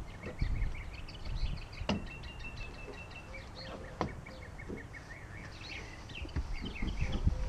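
Birds chirping and whistling, with two sharp knocks about two seconds apart from work in a pickup truck bed, over a low rumble.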